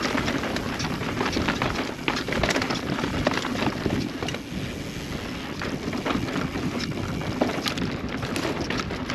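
Transition Spire mountain bike ridden along a dirt trail, heard from a helmet-mounted GoPro: wind rushing over the microphone, with a steady stream of clicks and rattles from the bike running over rough ground.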